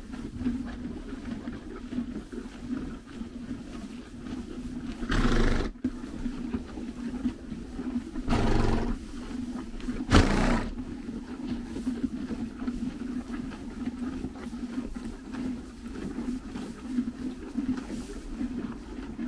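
Horses chewing hay close up, a steady crunching grind. Three short, loud blowing snorts break in, about five, eight and a half and ten seconds in.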